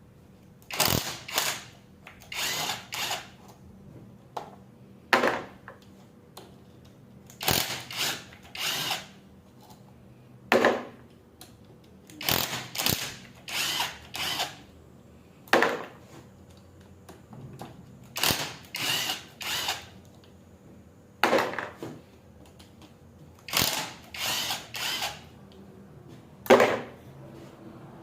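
Power drill-driver running in short bursts of about half a second, often two or three in quick succession, as fasteners are driven out while a Delco Remy starter is taken apart.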